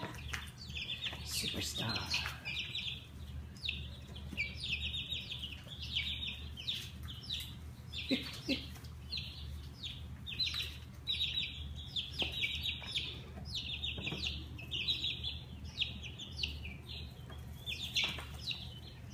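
Baby chicks peeping over and over, in short runs of high calls that come about once a second.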